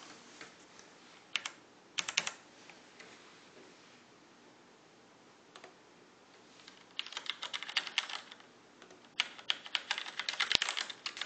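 Typing on a computer keyboard: a few scattered key clicks in the first couple of seconds, then two bursts of rapid keystrokes in the second half.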